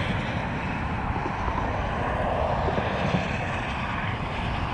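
Steady roar of highway traffic, an even wash of tyre and engine noise with no single event standing out.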